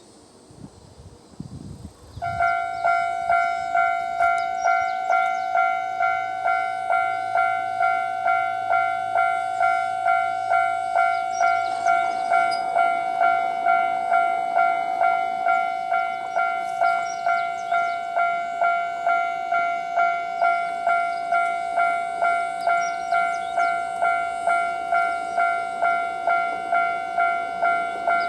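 Japanese railway level-crossing alarm starting about two seconds in and ringing steadily, an electronic bell tone struck again and again at an even pace of about one and a half strikes a second.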